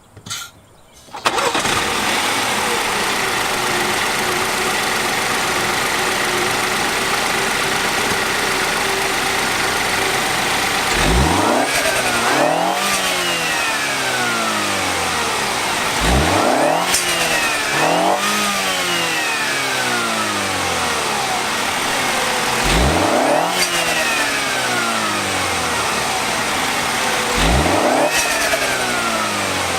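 A 2017 BMW X1 xDrive28i's 2-litre turbocharged four-cylinder engine, still on its stock paper air filter, idles steadily and is then revved four times. Each time the pitch rises quickly and falls back to idle.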